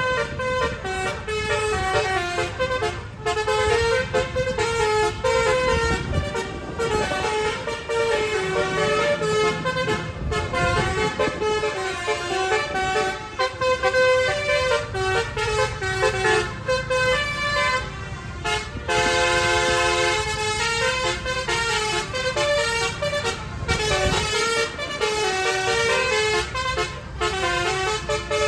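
Basuri-type 'telolet' bus horn, a set of musical air horns, playing a quick tune of stepping notes, with a held multi-note chord a little past the middle. Low engine noise runs underneath.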